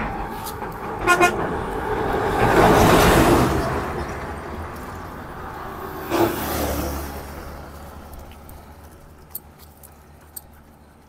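A road vehicle's horn toots briefly about a second in. The vehicle then passes, loudest about three seconds in, and fades away.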